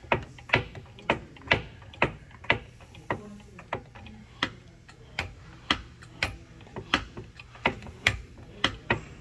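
Hand-operated lever-and-linkage demonstration model clacking as its handle is worked back and forth: sharp knocks, roughly one to two a second, at irregular spacing.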